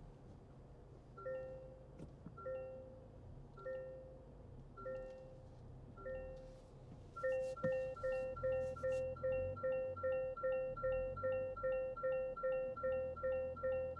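Toyota Land Cruiser 250's parking-sensor warning chime: a short beep about once a second, switching about seven seconds in to a faster, louder beeping of a little over two a second. The quickening is the sign that an obstacle is getting closer to the vehicle.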